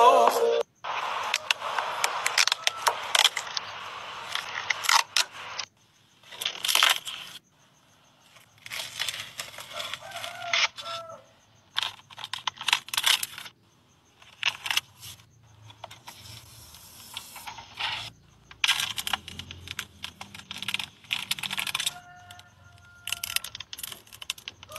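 Clear protective plastic film being peeled off a new car's interior trim, crackling and tearing in short bursts, broken up by several cuts.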